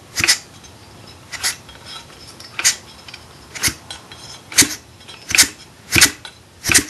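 A 49cc two-stroke mini bike engine being turned over by hand, each compression stroke giving a short puff of air, about eight in all, coming a little faster near the end. The puffs are the sign of good compression.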